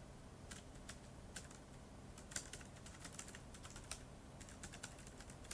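Faint, irregular key clicks of someone typing on a keyboard, in quick runs with short pauses between them.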